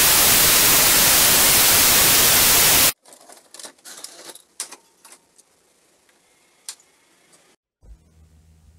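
Loud television static hiss that cuts off suddenly about three seconds in, followed by quiet clicks and clunks of buttons being pressed on an old video cassette deck. Near the end a low steady hum starts.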